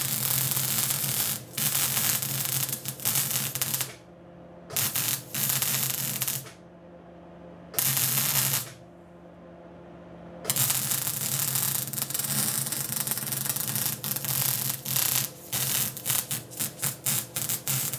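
Wire-feed welder arc crackling and sizzling in bursts as the gun's trigger is pulled and released: a few runs of several seconds with short pauses between, then quick stop-start blips near the end. A steady low hum sits underneath.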